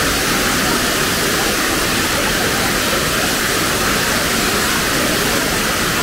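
Steady, even rush of the Tirathgarh waterfall on the Kanger river, a large fall of water heard close by.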